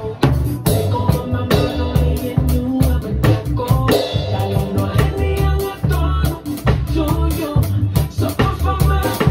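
Drum kit played with sticks: a steady beat of drum and cymbal hits over a recorded song with singing.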